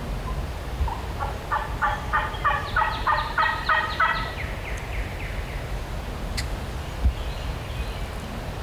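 Wild turkey gobbler gobbling: one fast rattling gobble beginning about a second in and lasting about three seconds, over a low rumble of wind on the microphone.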